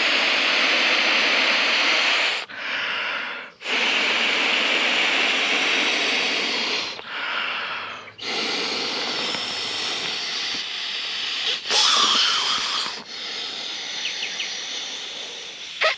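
A person blowing by mouth into the valve of an inflatable travel pillow: three long, steady blows of rushing air, with a quick in-breath between each.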